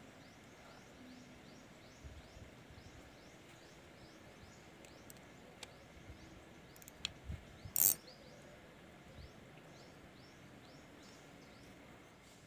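Quiet outdoor ambience: a faint steady hiss with a regular series of short, high, downward chirps, about two a second, from a small calling animal. A few faint clicks come in the middle, and a brief louder knock about eight seconds in.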